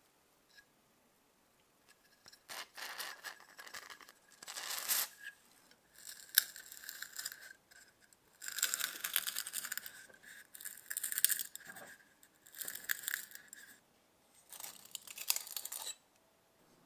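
Rusted threaded brass parts of an antique sugar grinder being twisted and unscrewed by hand, grating metal on metal in repeated bursts of gritty scraping with sharp clicks, each a second or two long.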